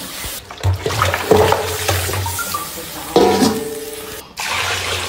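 Water poured from a stainless steel basin into a large wok of raw meat and bones, splashing in several gushes, then sloshing as a hand pushes the meat under the water.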